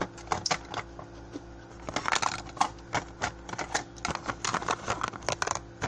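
Irregular clicks, taps and knocks of a hand handling the phone close to its microphone.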